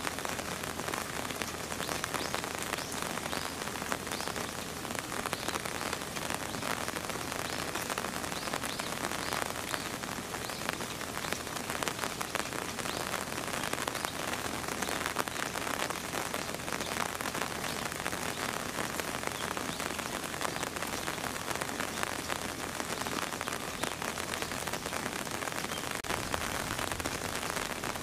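Steady rain pattering down, a continuous hiss of many small drops hitting a surface.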